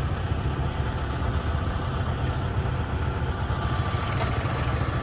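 Farm tractor's diesel engine running steadily, with a low even pulsing.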